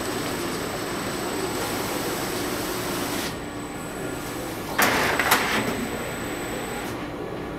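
Rosenthal Trivision Trimmer and its conveyor belt running, a steady mechanical noise with a faint high whine that drops out about three seconds in. A short, louder burst of machine noise comes about five seconds in.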